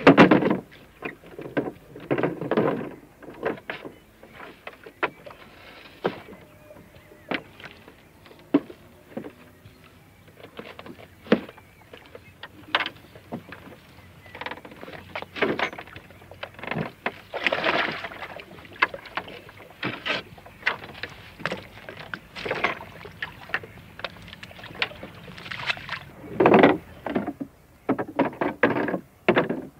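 Gear being moved about in a small wooden rowing boat: irregular knocks, thumps and clatter against the hull and seats, with louder, longer stretches of handling about halfway through and near the end.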